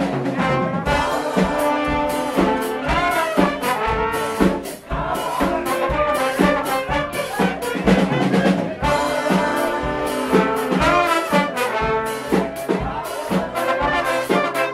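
Live brass band playing an up-tempo funk tune: trombones, one of them a plastic trombone, and trumpets over a drum-kit beat. The level dips briefly about five seconds in.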